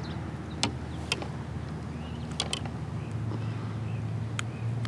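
Several sharp clicks and taps as a caught smallmouth bass and gear are handled in a kayak, over a steady low hum that grows louder after about three seconds.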